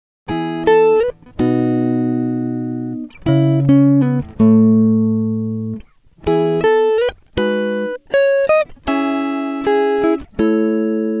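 Background music: slow chords, each struck and left to ring and fade, with short breaks between them.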